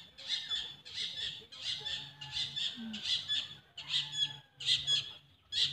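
Footsteps crunching over dry leaves and soil, about two steps a second, stopping near the end.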